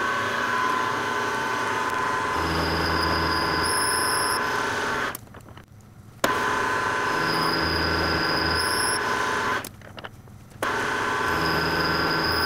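Milling machine running, its quarter-inch four-flute carbide end mill side-milling a flat on a tool-steel chuck key blank: a steady mechanical whine with a low hum that comes and goes. The sound drops away briefly twice.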